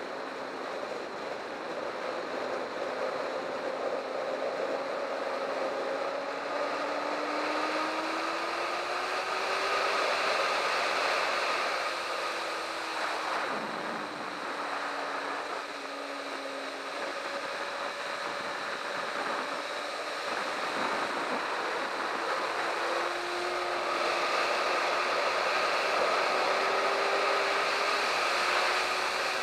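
Sport motorcycle engine at track pace, its pitch climbing and falling as the bike accelerates, shifts and rolls off the throttle for corners, with a few brief dips. Under it is a steady rush of wind and road noise.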